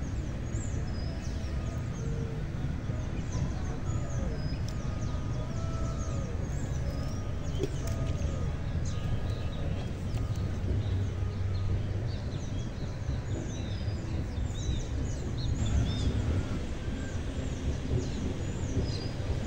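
Many small birds chirping and twittering in quick, high calls, over a steady low rumble.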